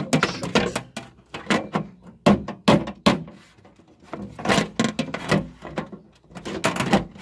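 Knocks, clicks and rubbing of a desktop PC case's side panel being handled and pushed back into place.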